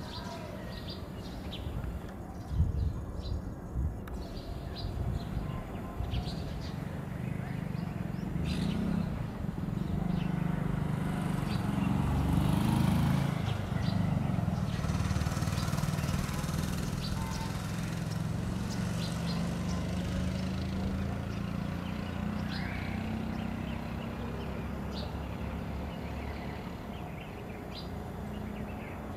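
Small birds chirping in short, scattered calls over a low, steady rumble that grows louder in the middle and then eases off.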